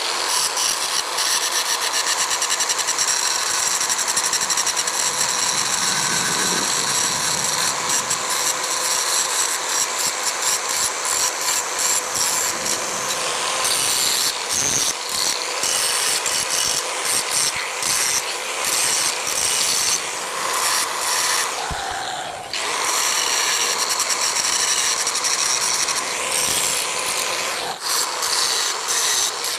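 Electric angle grinder running with its abrasive disc grinding steel from a used car spring, a continuous high whine and grinding rasp. The grinding eases briefly about two-thirds of the way through, then carries on.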